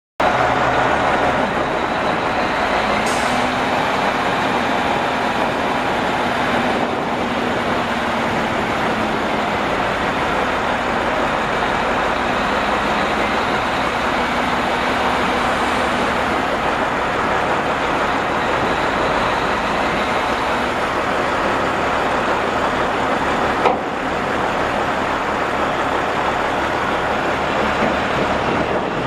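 Cummins L10 inline-six diesel engine of a 1997 Freightliner dump truck running steadily with the dump bed raised. There is one sharp knock about 24 seconds in.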